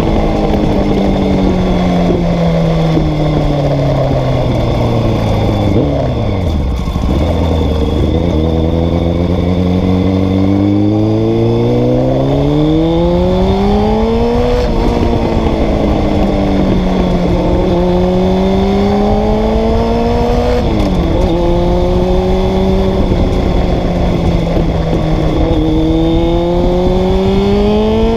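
Honda CBR600 F3's inline-four engine, heard close to its exhaust while the bike is ridden. The revs fall to a low hum about seven seconds in, then climb. The pitch drops sharply at upshifts about fifteen and twenty-one seconds in, holds steady for a while, and rises again near the end.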